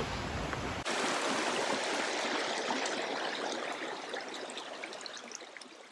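Shallow, rocky creek rippling over stones in small riffles, a steady rushing that starts about a second in and fades out near the end.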